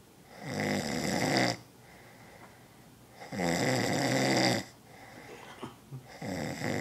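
A man snoring loudly in his sleep: three long snores, each a little over a second, coming about every three seconds.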